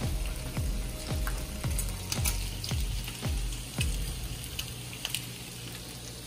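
Bacon sizzling in a frying pan, a steady hiss with scattered small crackles, over background music with a low beat about twice a second.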